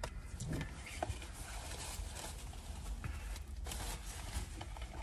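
Paper and plastic take-out food packaging being rustled and handled, with a few small clicks and crinkles.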